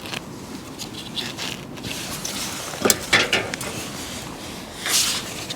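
A PIR floodlight being handled on its mounting: scattered clicks, creaks and knocks as the fitting is moved, with a short scraping sound near the end.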